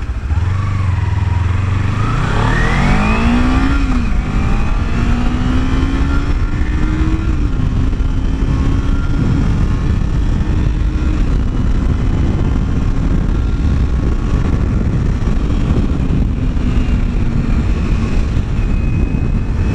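Kawasaki Ninja 300 parallel-twin engine pulling away from a stop: the revs climb, drop at an upshift about three and a half seconds in, climb again and drop at a second shift around seven seconds, then hold nearly steady at cruising speed. Wind rushes over the helmet-mounted microphone throughout.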